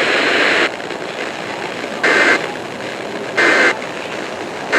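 Weather-radio static hiss, louder for the first moment. It is broken by three short digital screeching bursts of EAS SAME header data, about 1.3 s apart, the third right at the end: the coded header that heralds a new alert.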